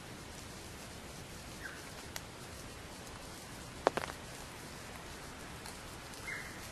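Steady hiss of drizzle in forest with scattered sharp drip-like knocks, the loudest just under four seconds in. Two brief high calls, one about a second and a half in and one near the end.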